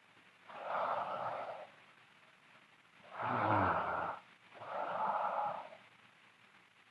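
A sleeping girl's heavy breathing and snoring: three breaths about a second long each, spaced by pauses, the middle one with a low snore in it.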